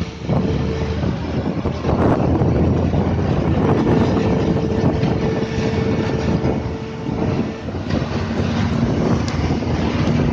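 Moving vehicle's steady running and road noise, with wind buffeting the microphone; a faint steady hum comes in for a few seconds in the middle.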